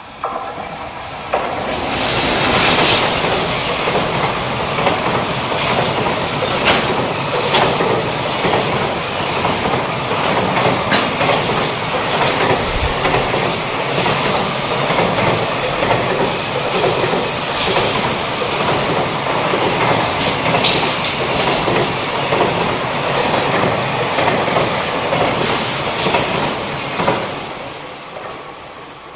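JR Freight EF210 electric locomotive and its long train of container wagons passing: a steady rumble with wheels clattering over rail joints. It swells sharply about a second and a half in and fades away near the end.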